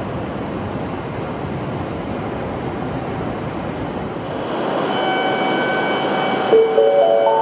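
Shinkansen train running along the platform, a steady rush of noise, with steady whining tones joining about halfway through. Near the end a station chime of rising notes begins, the lead-in to a platform announcement.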